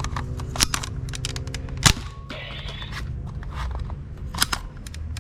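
Sharp plastic clicks and snaps from toy guns being handled and worked, with one louder snap about two seconds in and a faint steady hum during the first two seconds.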